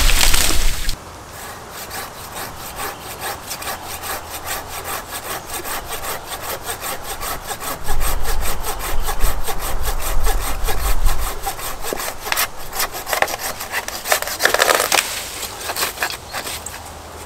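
Oregon 13-inch curved pruning hand saw with a Japanese high-carbon steel blade sawing through a tree branch in quick, even strokes, with a louder burst near the start and another about three-quarters of the way through.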